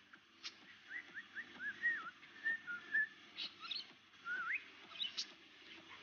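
Budgerigar whistling and chirping: a run of short whistled notes sliding up and down, broken by a few sharp chirps.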